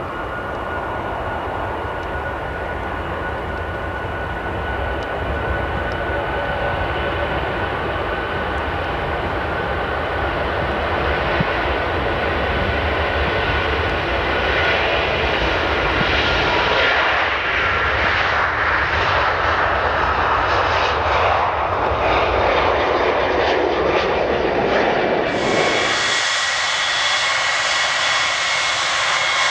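Four-engined Airbus A340 airliner on its landing roll on a wet runway: steady jet engine noise that grows louder and fuller about halfway through as it rolls past, throwing up spray. Near the end it cuts abruptly to the high whine of a Boeing 707-based NATO E-3A AWACS's jet engines as it taxis.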